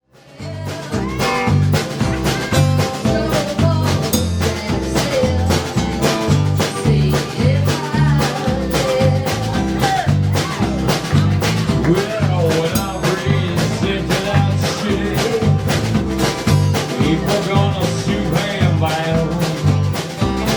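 A live band playing loud, upbeat music with a steady drum beat and bass line. It fades in at the very start.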